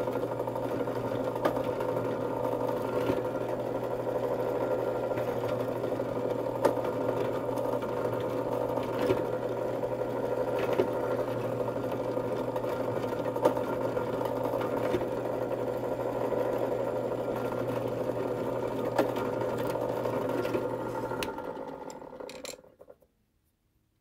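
Clarke benchtop drill press running steadily while drilling out a stainless steel pivot bushing set in a G10 handle scale, with a few light clicks from the bit. The motor shuts off and winds down to silence near the end.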